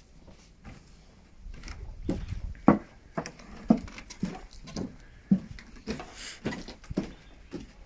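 Footsteps on a wooden plank boardwalk: short hollow knocks about twice a second, starting a second or two in.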